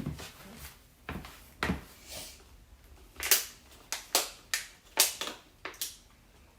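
Plastic packaging being handled and pried at: a string of sharp clicks and crackles, most of them coming quickly together in the second half.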